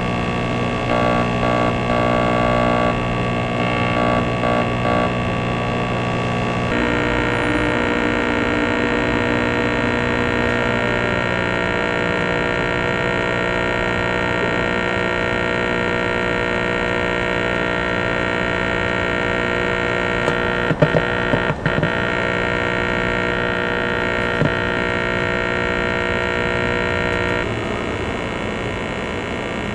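Electronic drone from a laptop played through a small amplifier speaker: a loud, dense hum of many held tones, stuttering in pulses over the first few seconds and shifting in texture about seven seconds in. A short cluster of clicks comes about two-thirds of the way through, and the level drops a little near the end.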